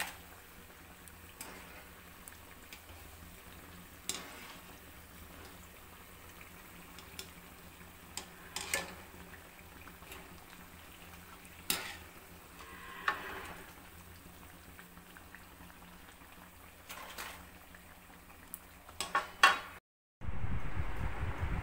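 Urad dal and potato vadas deep-frying in hot oil in a steel kadai: a faint steady sizzle, with sharp clinks every few seconds as a wire skimmer knocks against the pan, lifting the fritters out, and a quick run of clinks near the end. The sound then cuts out and a louder low rumbling noise begins.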